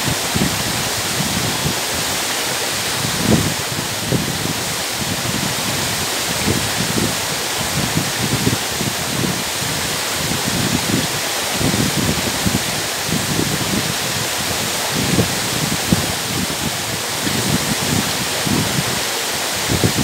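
Waterfall crashing down a rock face onto boulders: a steady, dense rushing hiss with uneven low surges under it.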